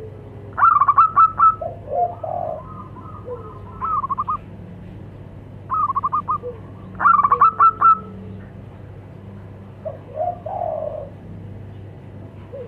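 Zebra doves (perkutut) answering each other: four bursts of rapid, clipped cooing notes, with softer, lower, warbling coos in between.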